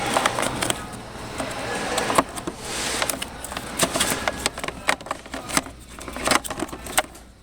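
Irregular plastic clicks, scrapes and rustling, typical of a cabin air filter and its plastic housing being handled.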